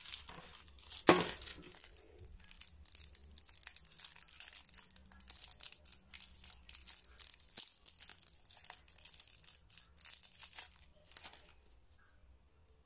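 Crinkling and crackling of the twisted metallised wrapper of a mini Mars bar from a Celebrations tin as it is untwisted and peeled off by hand, with one sharp crackle about a second in. It eases off near the end as the bare chocolate comes free.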